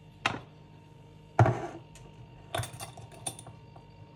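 Measuring spoons and spice containers tapping and clicking as spices are spooned out: a single tap, a louder knock about a second and a half in, then a quick run of small clicks.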